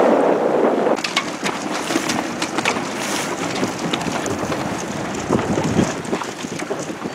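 Strong wind buffeting the microphone for the first second, then choppy water splashing and slapping around a boat's hull, with wind noise under it.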